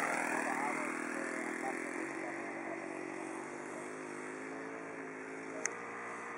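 ASP 91 single-cylinder four-stroke glow engine of a radio-controlled P-47 Thunderbolt model in flight, its pitch dropping and level fading as it passes and draws away, then holding a steady drone. One sharp click near the end.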